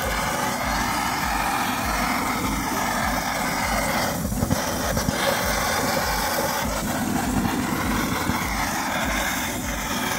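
Butane blowtorch flame running steadily as it sears marinated beef skewers, its hiss dipping briefly about four seconds in.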